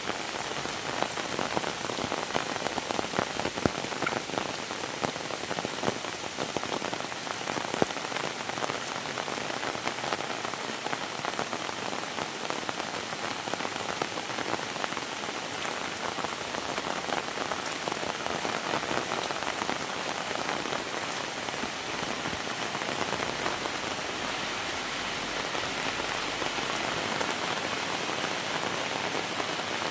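Heavy rain falling steadily, with a dense patter of close, sharp drop impacts on a surface, busiest in the first several seconds.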